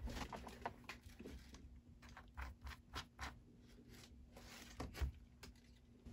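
Faint handling sounds: a string of light clicks and scrapes as hands grip and twist open a cordless drill's keyless chuck to free the end of a wire coil.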